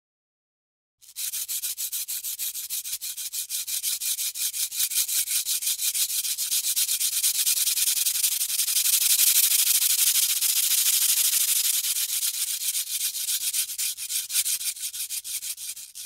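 Foliage rustling in a rapid, even rhythm, starting about a second in, swelling in the middle and easing off near the end.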